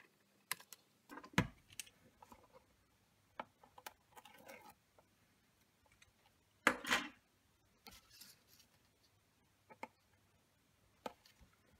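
Quiet, scattered clicks and rustles of small craft handling: scissors snipping thin double-sided adhesive tape and the tape being pressed onto a cardboard box lid, with a sharp click about a second in and a brief louder rustle about seven seconds in.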